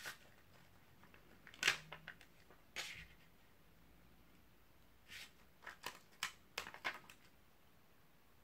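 Small crinkles and taps of a clear plastic sheet of adhesive half-pearls being handled, with pearls pressed onto a paper card. There is a sharper one about a second and a half in, and a quick run of them near the end.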